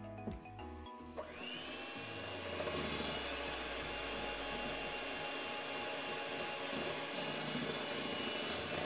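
Electric hand mixer starting up about a second in, its whine rising and then running steadily as the twin beaters whip softened butter in a glass bowl.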